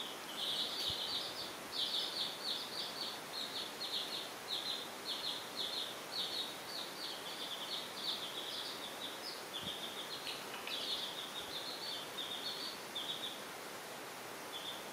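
Several young chicks peeping in quick, overlapping, high-pitched cheeps that thin out and stop about a second and a half before the end.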